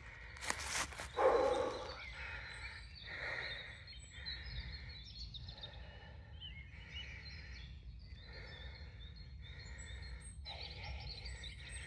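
Outdoor ambience: birds chirping over a steady low rumble, with a loud rustle about a second in.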